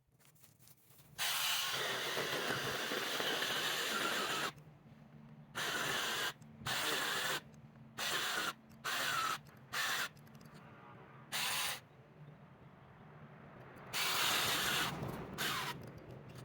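Cordless mini chainsaw running in bursts as the trigger is pulled and released: one long run of about three seconds, then six short ones, then another longer run near the end.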